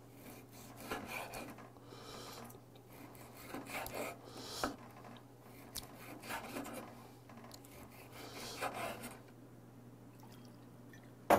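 Chef's knife slicing raw beef on a wooden cutting board: several short scraping strokes, roughly a second apart, as the blade draws through the meat and onto the board. A sharp knock right at the end.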